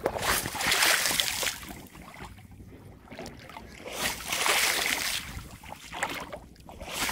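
Shallow muddy rice-field floodwater splashing and sloshing as a person's legs kick through it: the té nước way of flushing out climbing perch. It comes in two surges, the second about four seconds in, with another starting at the very end.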